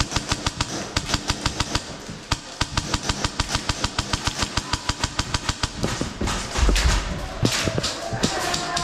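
Airsoft gun firing a long, steady string of shots, about eight a second, for roughly six seconds, followed by a heavy thump and a few scattered clicks.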